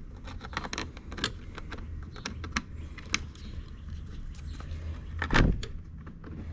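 Hands and tools working on the generator's parts during reassembly: scattered metallic clicks and clinks, with one louder thump a little after five seconds.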